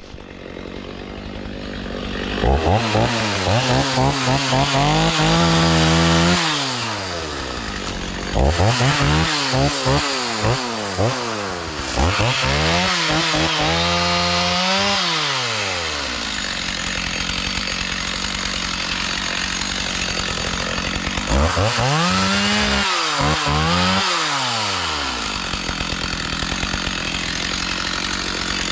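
Chainsaw running, revved up and let back down about four times, with steadier running in between, as it is worked on brush and wood.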